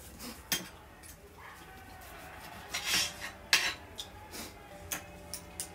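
Knife and fork cutting grilled beef ribs, the metal scraping and clicking against the serving board: a string of sharp clicks, with a longer scrape about three seconds in.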